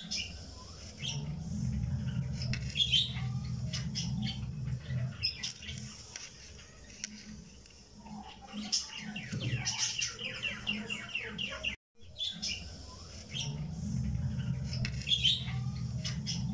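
Background track of birds chirping and trilling over a low steady hum, with a brief dropout about twelve seconds in, after which the same birdsong loop starts over.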